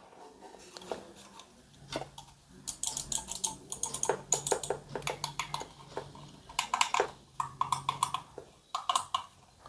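Ant Esports GM100 gaming mouse buttons being clicked in quick runs of sharp clicks, several clusters of them, with a faint low hum underneath.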